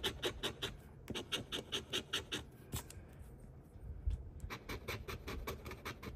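A coin scratching the coating off a scratch-off lottery ticket in quick strokes, about five a second. The strokes come in three runs, with a pause of nearly two seconds before the last.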